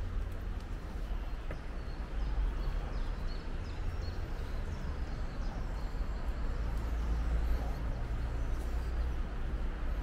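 Outdoor ambience: a steady low rumble that swells and eases, with faint bird chirps in the middle.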